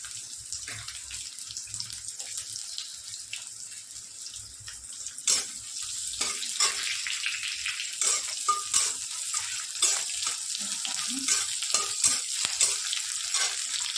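Chopped onions sizzling in hot oil in a kadhai, with a steel spatula scraping and clicking against the pan as they are stirred, the strokes coming often from about five seconds in.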